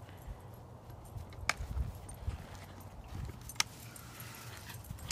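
Dogs moving about on dry grass and gnawing on a piece of wood: faint rustling over a low rumble, with a couple of sharp clicks about one and a half and three and a half seconds in.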